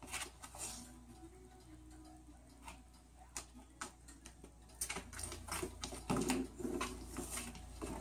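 A cockatoo shuffling about under a quilt on a hard floor: scattered light taps, clicks and soft rustling, busier and louder in the second half.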